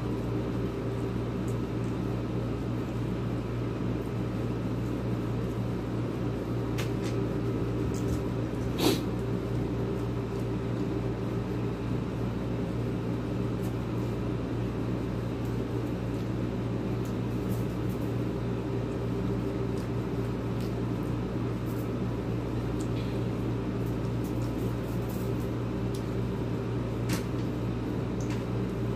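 Steady low electrical hum, like an appliance motor running, with a few light clicks; the loudest click comes about nine seconds in.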